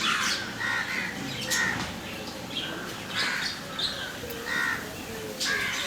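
Repeated caw-like bird calls, short and separate, about one a second.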